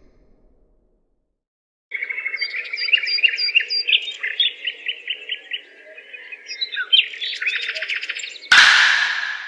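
A small bird chirps rapidly and repeatedly, in quick runs of short chirps. Near the end a sudden loud burst of noise cuts in and fades over about a second.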